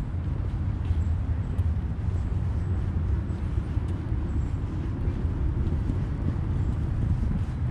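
Outdoor city street ambience: a steady low rumble, like traffic or wind, with no clear single event.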